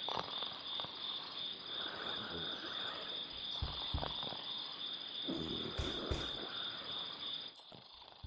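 Crickets chirring in a steady, finely pulsing high trill, with a few soft low thumps in the middle; the chirring drops away near the end.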